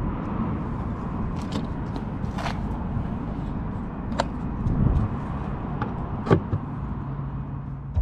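Steady low rumble of a car, with a handful of sharp clicks and knocks scattered through it; the loudest knock comes about six seconds in.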